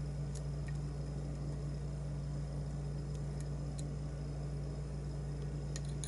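Steady low hum and hiss, with a few faint, light metallic ticks from lock picks working the pins of a challenge lock held in a vise.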